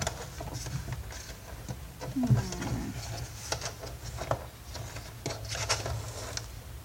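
Scattered clicks and light knocks of plastic vacuum-cleaner housing parts being handled while a stuck electrical cable is tugged from inside.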